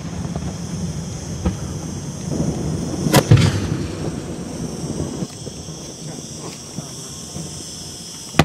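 Aerial firework shells going off: a faint bang about a second and a half in, then a sharp, loud bang about three seconds in that rings out and echoes, over a low continuous rumble.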